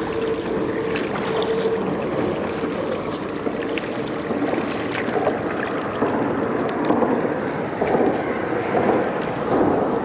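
River water rushing steadily, with a few faint splashes and clicks.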